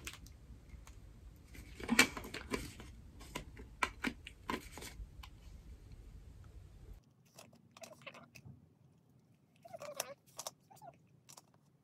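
Irregular small clicks and scrapes of a cosmetic jar's lid being twisted and pressed as it fails to close. The clicks are densest in the first half, with the sharpest about two seconds in, and grow sparse later.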